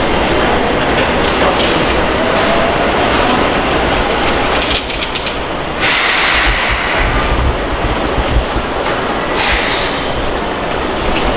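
Seibu 20000-series electric train pulling out of the station and running away down the line: a steady rumble of wheels on rail, with a faint rising motor whine as it accelerates over the first few seconds.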